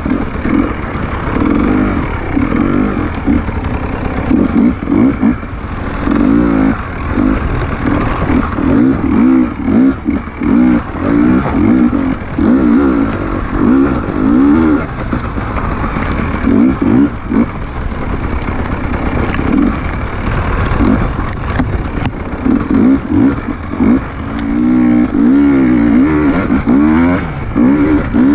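Off-road enduro motorcycle engine being ridden hard, its pitch rising and falling over and over as the rider opens and closes the throttle.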